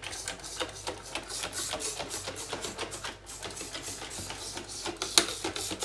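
Plastic trigger spray bottle squeezed over and over, spraying onto a glass gas cooktop: a quick run of short spray hisses, about three a second.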